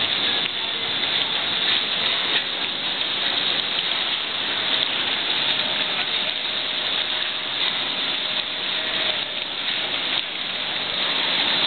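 Household refuse pouring into a waste bunker, a steady rushing noise full of small rattles and clatters, with a faint machine hum partway through.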